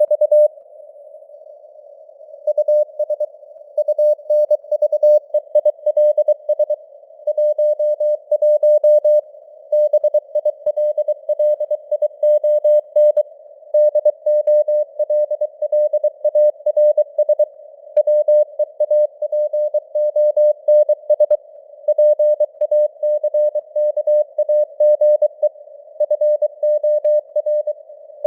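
Morse code (CW) sent at 23 words per minute as a single-pitch beep keyed on and off in quick dots and dashes, spelling out news headlines. A faint hiss of simulated radio band noise runs under it, and the signal strength varies (QSB). There is a pause of about two seconds near the start.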